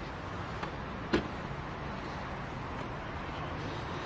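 City parking lot ambience: a steady wash of traffic and background noise, with one sharp knock about a second in.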